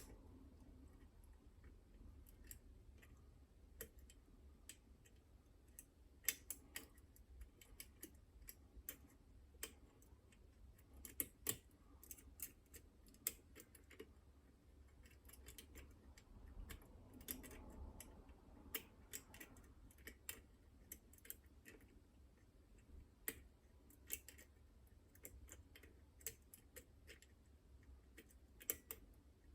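Faint, irregular metallic clicks and ticks from lock picks prodding the levers inside a Chubb Detector lever lock, coming in scattered clusters with a few sharper clicks among them.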